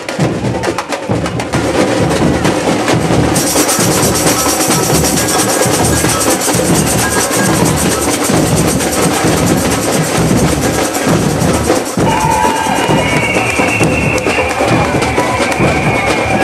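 Loud parade drumming: a percussion group playing dense, fast drum strokes with a steady beat. A held higher tone joins about twelve seconds in.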